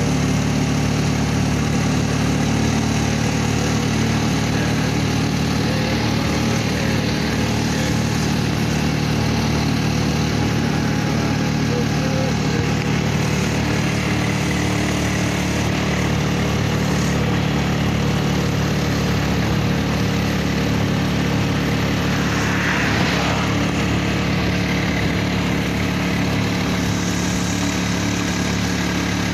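Motorcycle engine running steadily at cruising speed, heard from the back seat, with road and wind noise.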